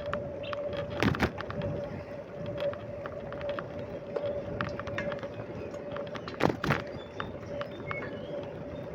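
A bicycle being ridden along: a steady hum with frequent small clicks and rattles, and two louder thumps, one about a second in and one about six and a half seconds in.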